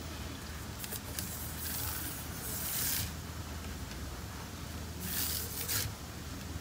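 Hands sliding and rubbing over the fabric surface of a Microsoft Surface Pro type cover, two soft swishing rubs, one about two seconds in and another about five seconds in, over a faint steady low hum.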